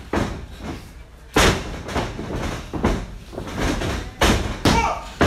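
A series of heavy thuds and slams from wrestlers hitting and moving on a wrestling ring's canvas and boards, the loudest about a second and a half in.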